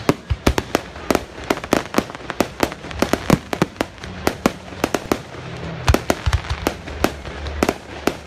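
Fireworks display: aerial shells bursting in quick, irregular succession, several sharp bangs a second.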